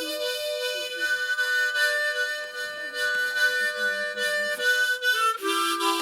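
Harmonica playing long held chords, changing to a new chord with lower notes a little after five seconds in.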